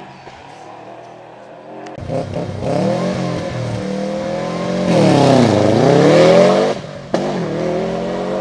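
Rally car engine revving hard at speed. The engine note jumps up sharply about two seconds in and is loudest past the middle, where the pitch dips and then climbs again as the car slows and accelerates.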